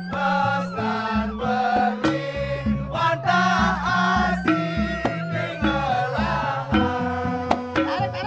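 Balinese joged gamelan music accompanying the dance: struck bamboo-keyed instruments play a fast, stepped, repeating melody over sharp drum strokes, with a voice singing over it.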